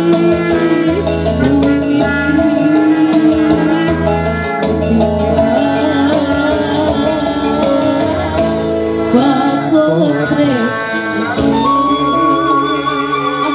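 Live Sundanese pop song (kawih): a singer's held, wavering melody over electronic keyboard with a steady bass and kendang hand-drum strokes.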